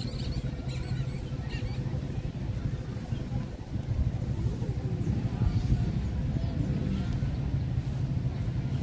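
Street ambience: a steady low rumble of motor-vehicle engines, with faint voices in the background.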